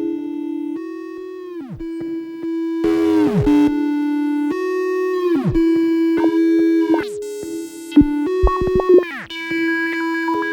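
Electronic noise music: sustained synthesizer tones that repeatedly dive sharply down in pitch, with a short burst of hiss about three seconds in and a cluster of clicks around eight seconds in.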